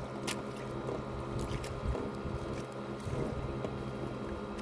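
Boat engine running steadily, with a few sharp clicks over it.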